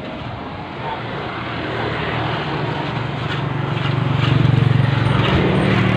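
An engine running steadily, its low hum growing louder over a couple of seconds midway through.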